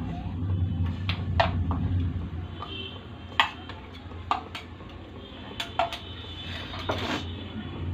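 Sharp metallic clinks and taps of a steel bowl and spoon against an aluminium pressure cooker as ingredients are emptied into frying masala, about eight separate clinks, over a steady low hum.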